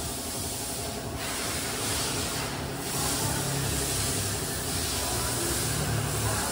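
Water jet from a car-wash spray hose hissing and splashing on the wet concrete floor and the car's underside, with a low hum underneath that grows a little louder about three seconds in.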